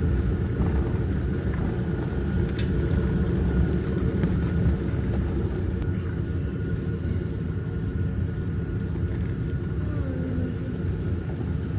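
Jeep Gladiator Rubicon on the move: a steady low drone of engine and tyre noise with no let-up.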